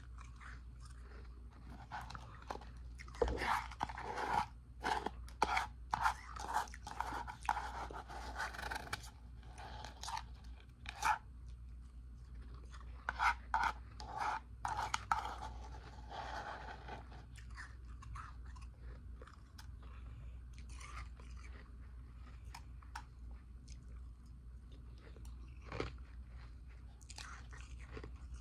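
Ice being bitten and chewed close to the microphone: dense runs of loud crunching through the first half, then quieter chewing with scattered crunches.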